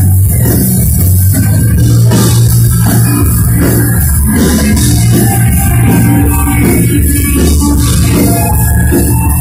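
Live hard rock band playing loud: electric guitars, bass guitar and drum kit all going together without a break.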